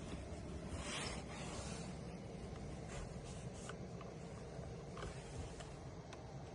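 Cabin noise inside a Tesla Model Y: a steady low road rumble with a few faint, brief ticks, and hardly any squeaks or rattles from the interior trim.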